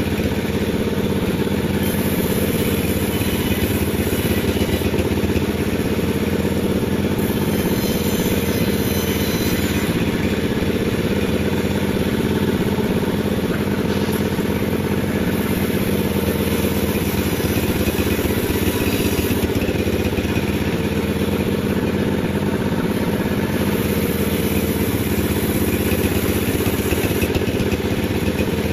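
A sawmill's engine running steadily at constant speed while a durian log is sawn.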